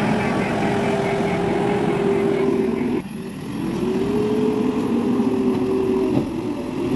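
JCB 3DX backhoe loader's diesel engine running hard as the machine works the loader bucket, with a steady pitch. It cuts out abruptly about three seconds in, then climbs in pitch and holds before easing off near the end.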